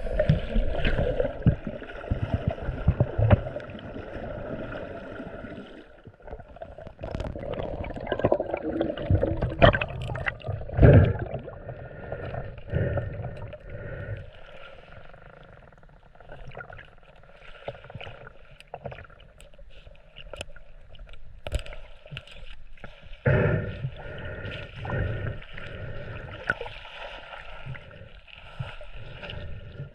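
Muffled water gurgling and sloshing around the camera, with irregular knocks and bumps.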